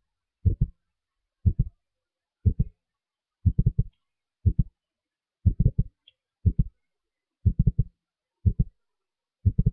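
Low, regular thumping: short clusters of two to four thuds about once a second, with silence between.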